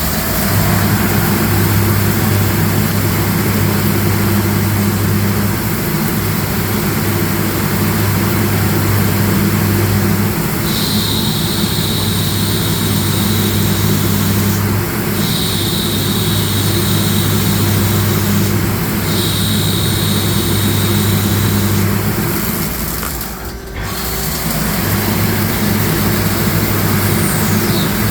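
CNC lathe running steadily with a low hum, cutting a goose call body. A high-pitched cutting whine comes and goes in three stretches in the middle, and there is a brief break in the sound near the end.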